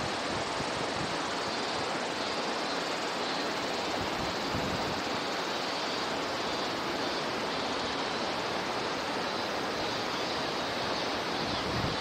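Steady rushing noise with no distinct calls or knocks.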